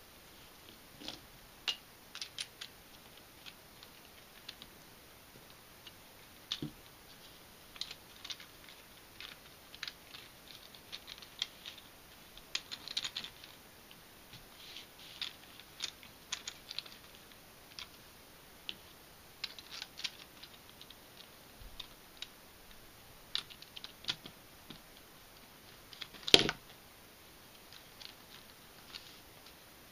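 3D-printed plastic puzzle pieces clicking and tapping against each other as corners and edges are pushed by hand into a twisty-puzzle mechanism, in irregular small clicks, with one sharp louder click near the end.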